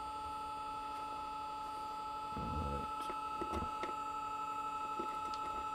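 Steady two-tone electrical whine from the running motor-generator rig, with a few faint clicks as multimeter test probes are handled.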